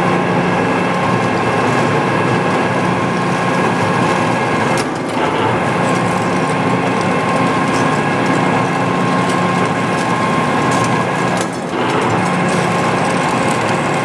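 Metal lathe running under load as a large twist drill, about 1-27/64 inch, bores into the end of a sawmill mandrel spinning in the four-jaw chuck with coolant flowing. It makes a steady machine hum with a grinding cutting noise, and the noise dips briefly twice.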